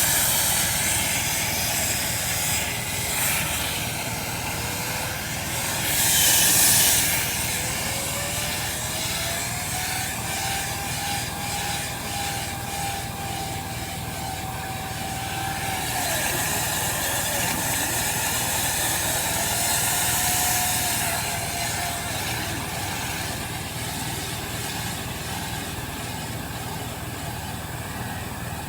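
Dryer vent cleaning equipment running steadily, with a faint whistling tone that slides up and down and louder rushes of hiss about six seconds in and again from about sixteen to twenty-one seconds.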